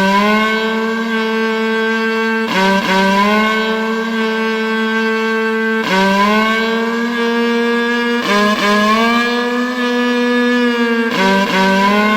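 Cow horn sounding a run of long, steady blasts back to back, each lasting about three seconds and opening with a quick upward scoop in pitch; four blasts and the start of a fifth near the end.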